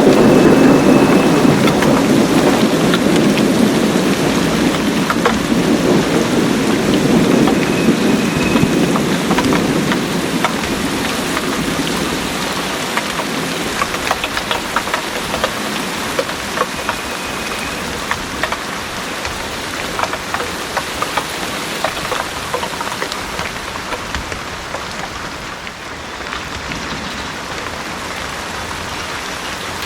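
Heavy rain pouring steadily, with a low rumble of thunder that slowly dies away over the first ten seconds or so. After that the rain goes on alone, with many individual drops ticking close by.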